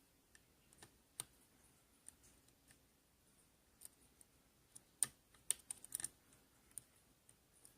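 Faint, scattered metallic clicks and taps of a lock pick and tension wrench working the pins of a Binco padlock, with a quick cluster of sharper clicks about five to six seconds in.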